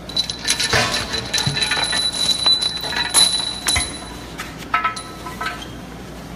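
Metal parts and tools clinking and rattling during hands-on disassembly of a robot arm, with a steady high ringing tone over the first four seconds or so.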